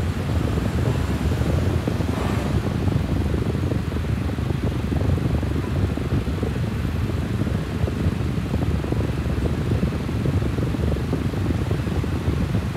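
Steady low rumble of moving air, heaviest in the bass and without any clear pitch.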